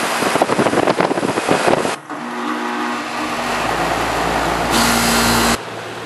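Outdoor air-conditioner condenser unit running with power restored and a new run capacitor fitted: a steady mechanical hum and rushing air, crackly for the first two seconds. A louder hiss comes near the end and cuts off suddenly.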